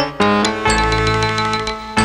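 Instrumental end-credits music: a short note, then a held chord over a deep bass note from about two-thirds of a second in.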